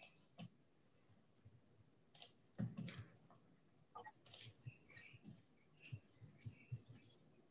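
Faint, scattered clicks and taps of a computer mouse and keyboard being operated.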